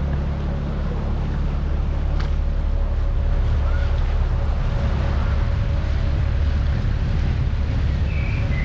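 Open canal tour boat under way: a steady low rumble from its motor and the water, with wind buffeting the microphone.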